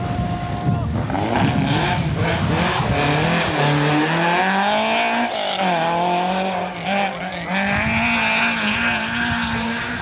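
Rally car engine revving hard as the car accelerates through a corner. Its pitch climbs, drops back sharply at a gear change about halfway through, then climbs again.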